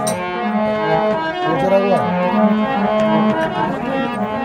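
Harmonium playing an instrumental interlude in a Rajasthani devotional bhajan: a melody of steady held reed notes that change every fraction of a second.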